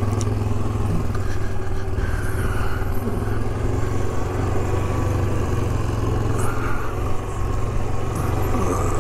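Single-cylinder four-stroke engine of a 2008 Yamaha Grizzly 450 ATV running at a steady pace while it is ridden.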